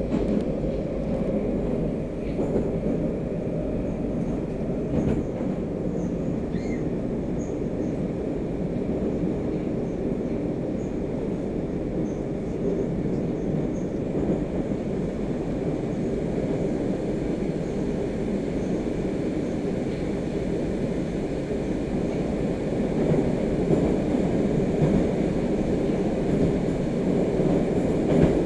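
Inside a car of a Moscow metro "Moskva" train running through a tunnel: a steady rumble of wheels on rails and running gear, rising slightly near the end.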